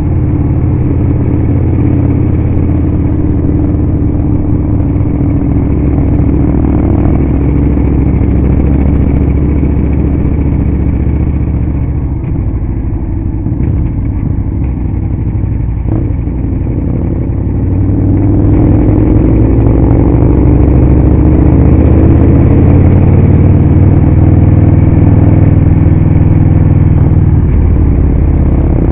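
Victory motorcycle's V-twin engine running under way. It eases off about twelve seconds in, then climbs in pitch and gets louder from about eighteen seconds as the bike accelerates.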